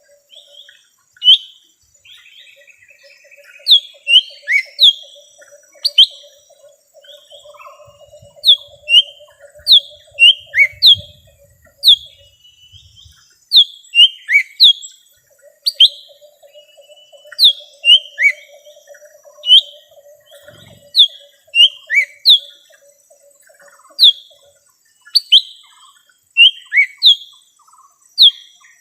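Lesser green leafbird (cucak ijo mini) calling in a lure recording: loud, sharp, downslurred whistled notes, often in quick pairs or threes, repeated irregularly.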